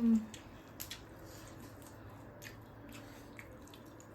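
A person chewing food close to the microphone: soft, wet mouth clicks and squelches a few times, between stretches of quiet chewing.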